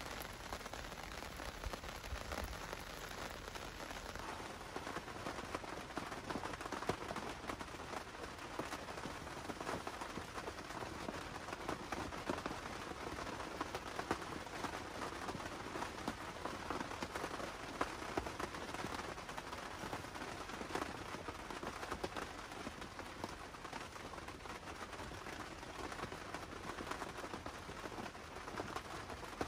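Steady rain pattering on a surface, a dense, even patter of drops that neither builds nor fades.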